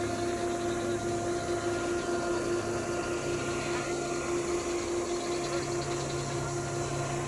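Diesel locomotive engine idling, a steady hum whose low note steps up slightly in pitch twice.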